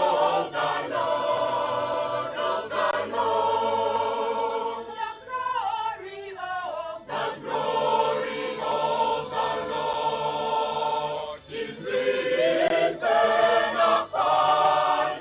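Mixed church choir singing a piece in parts, many voices together. The sound thins out for a couple of seconds about five seconds in, then the full choir comes back in.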